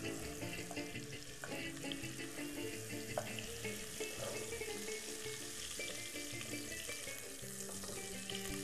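Chicken pieces frying in oil and butter in a pot, a steady sizzle, stirred with a wooden spoon, with a single knock about three seconds in. Soft background music plays underneath.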